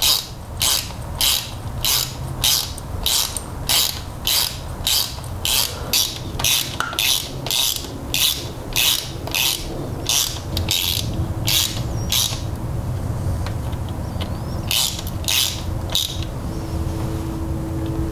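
Small hand ratchet with a 10 mm socket clicking in repeated back-strokes, about two a second, as bolts of a camshaft seal housing are run in; the clicking stops about twelve seconds in, then a few more strokes follow.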